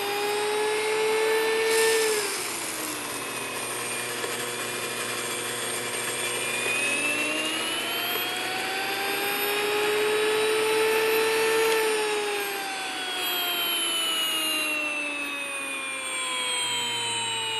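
Electric grain mill grinding wheat berries into flour: its high-speed motor gives a steady, high-pitched whine. The pitch dips about two seconds in, climbs again, and falls slowly over the last five seconds.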